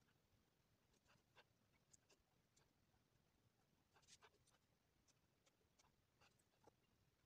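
Near silence with faint, irregular taps of a fine paintbrush dabbing paint onto sketchbook paper.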